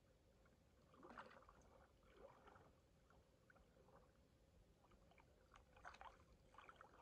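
Near silence: faint water around a man wading, with a few faint ticks from a spinning reel being wound, about five to six seconds in.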